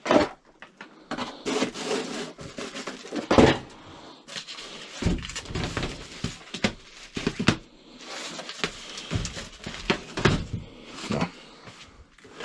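Irregular knocks, scrapes and rustles of a person moving through and picking over a cluttered, junk-filled room, with no steady rhythm.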